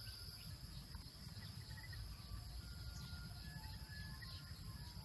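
Steady high-pitched drone of insects, with scattered short bird chirps over a low rumble.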